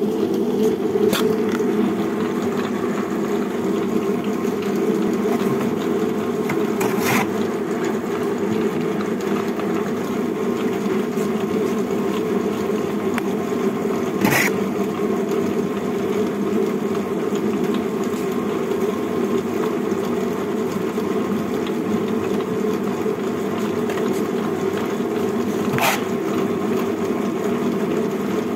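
Cow dung log making machine running steadily, a loud even mechanical hum as it extrudes a continuous log of compressed cow dung through its nozzle. A few short sharp knocks stand out over the hum, the loudest about halfway through.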